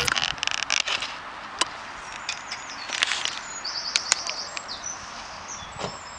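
Close-up handling of a plastic bag and drink bottle: crinkling and scattered clicks. A small bird sings a short, fast trill about four seconds in.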